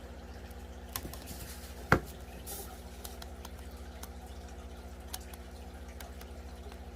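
Water dripping lightly over a steady, evenly pulsing low hum like a small pump, with a small click about a second in and a sharp, louder click just before two seconds in.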